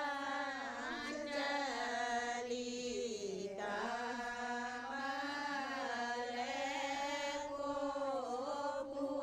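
Slow devotional singing in a chant-like melody with long drawn-out notes over a steady drone.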